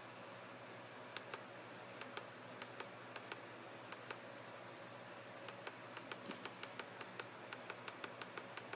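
Mario alarm clock giving off short, sharp, irregular clicks, a few a second, sparse at first and coming faster over the last few seconds.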